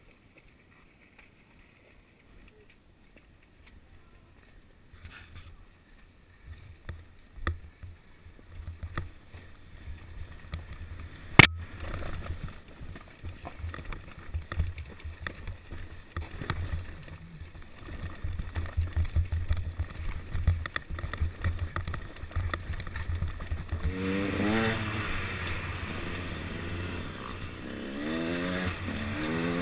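Enduro dirt bike engine, nearly silent for the first few seconds, then running with a low steady rumble, with knocks and one sharp loud crack about eleven seconds in. In the last six seconds the engine revs up and down several times.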